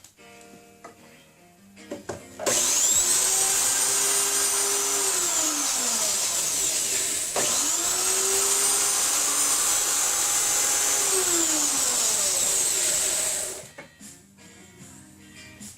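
An electric woodworking power tool runs loudly for about eleven seconds. Its motor pitch drops twice, with an abrupt change about halfway through. Quiet background music plays before and after it.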